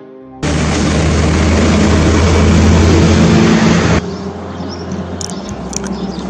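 A vehicle going past close by: a loud rushing noise with a deep rumble that starts suddenly about half a second in, swells a little, and is cut off abruptly at about four seconds. After that comes quieter outdoor ambience with a few clicks.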